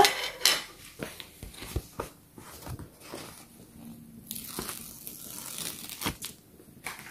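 A paper sticker sheet rustling and crinkling as it is handled, with a long sticker being peeled off its backing, heard as a tearing hiss among soft scattered crackles.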